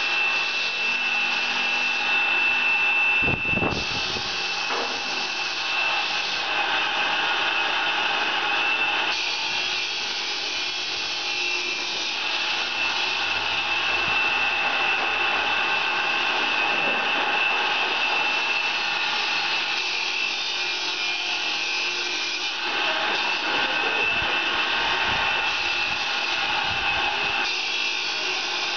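Steady workshop machinery running with a constant high whine over a hiss, and a knock about three and a half seconds in with a few fainter knocks later.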